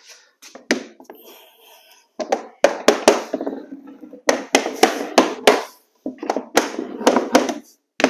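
Tapping block knocking against the edge of a vinyl plank, tapping the plank into its joint. After a quiet start with some handling, the knocks come in three quick runs of several sharp knocks each.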